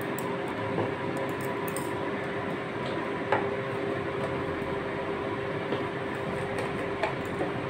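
Hot oil sizzling steadily in a steel kadhai with whole dried red chillies and black cumin seeds tempering in it, with a few small pops.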